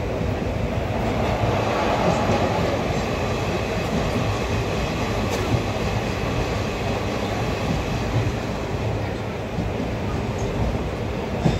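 A moving passenger train's coach rumbling steadily on the rails, heard from inside by an open window, with a few sharp wheel clacks, the loudest near the end.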